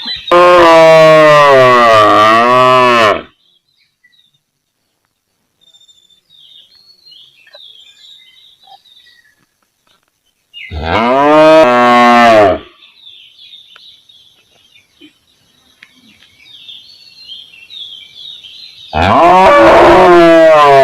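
A cow mooing three times: long, loud calls that bend in pitch, the first about three seconds, the second shorter about halfway through, and the third starting near the end. Faint high chirping fills the pauses between them.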